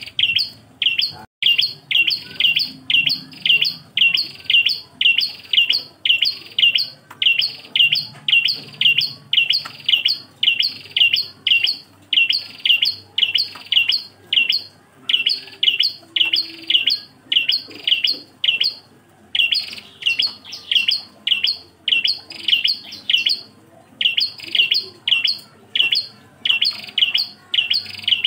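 Prenjak klawu singing: a rapid, monotonous run of short, sharp, high chirps, all alike, about three a second, broken by a couple of brief pauses.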